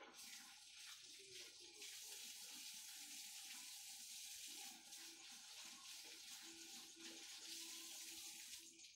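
Faint water running steadily, starting abruptly and cutting off shortly before the end.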